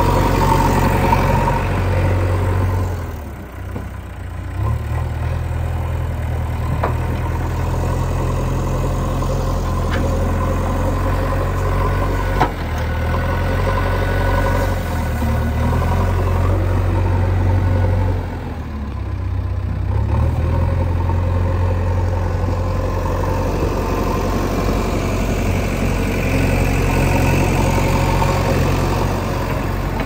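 JCB 3DX backhoe loader's four-cylinder diesel engine running steadily while the loader works, its note stepping up and down and dipping briefly a few seconds in and again past the middle. A single sharp knock sounds near the middle.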